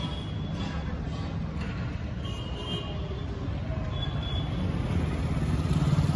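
Ford 3600 tractor's engine idling with a steady low throb, getting a little louder near the end.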